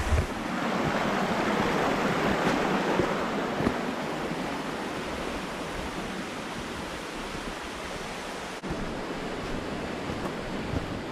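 Mountain stream water rushing and splashing as a steady noise, a little louder in the first few seconds, with a brief break about eight and a half seconds in.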